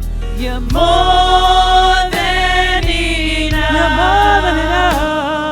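Live gospel worship song: singers hold long notes with vibrato over a steady low accompaniment.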